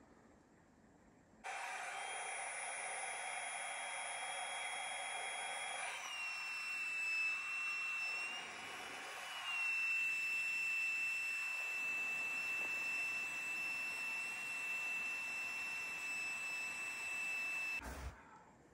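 A small electric motor runs steadily with a whine. It switches on suddenly about a second and a half in, its pitch shifts a few times partway through, and it cuts off abruptly near the end.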